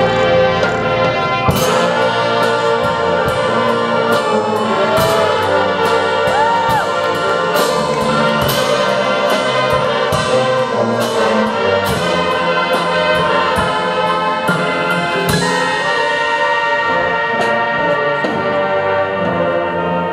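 High school marching band playing: the brass section holds full sustained chords over a steady run of percussion hits from the drums and front-ensemble keyboards.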